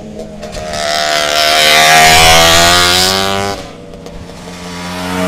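Vintage racing motorcycle passing close by at speed. Its engine note grows loudest about two seconds in, then drops away sharply as it goes past. Another bike's engine rises again near the end as it approaches.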